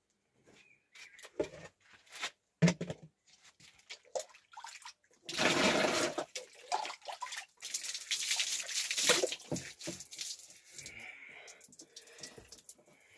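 Water splashing and pouring as a person washes his head and face: scattered knocks and drips at first, then two longer splashes about five and eight seconds in.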